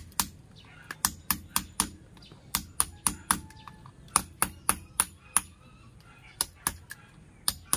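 A hammer striking metal, likely a chisel into concrete to make a hole: rapid, sharp taps at about three a second, slightly uneven in spacing.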